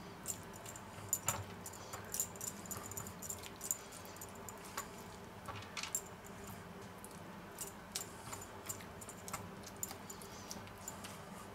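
A metal utensil taps and scrapes lightly and irregularly against a stainless steel roasting pan while barbecue sauce is spread over the meat, giving faint scattered clicks.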